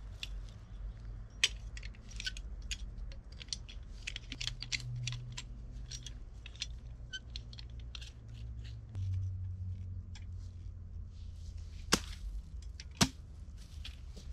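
Camping gear being handled at a backpack: many small clicks and rustles, with two sharp snaps about a second apart near the end, over a low steady rumble.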